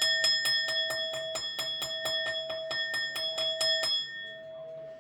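A small bell rung rapidly and evenly, about four strikes a second, with its clear ringing tones. The striking stops about four seconds in and a single ringing tone lingers and fades.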